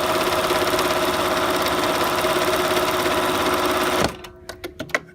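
Riccar Bernina 1240 electronic sewing machine running steadily as it sews a row of default stitches. It stops abruptly about four seconds in, followed by a few short clicks.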